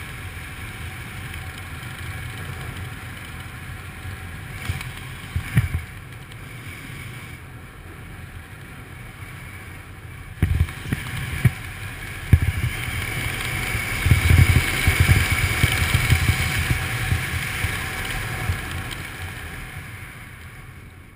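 Wind rushing over a GoPro's microphone during a parachute descent under canopy. A steady rush with low buffeting that grows heavier about two-thirds of the way through, and a few sharp knocks along the way.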